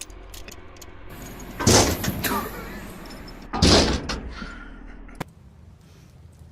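Two loud bangs about two seconds apart, the first about a second and a half in, followed by a sharp click near the end.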